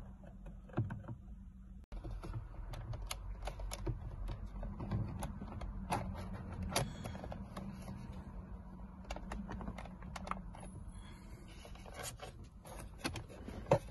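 Irregular small plastic clicks and taps from a steering-column clock spring housing being handled and fitted onto the column, over a faint steady low hum.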